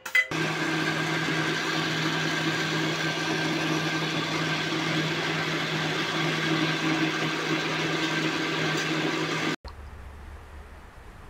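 Electric blender running at a steady speed, blending mango pulp and milk into a shake. It starts suddenly and cuts off abruptly near the end.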